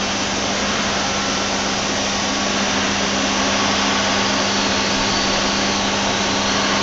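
Hartford HEP-2150 CNC bridge mill running, a steady motor hum under an even rushing hiss.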